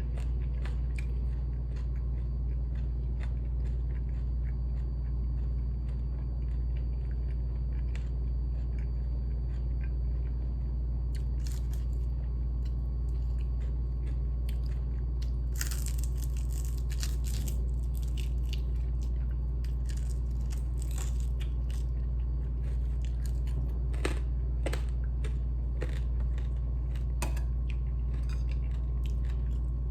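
Close-up mouth sounds of eating fried chicken: chewing and crunching with scattered short clicks and smacks, in irregular clusters, over a steady low hum.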